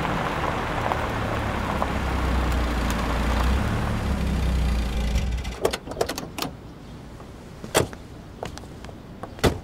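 Car running, a steady low engine hum with road noise, which stops about five and a half seconds in. It is followed by a few scattered sharp clicks and knocks, the loudest near the end.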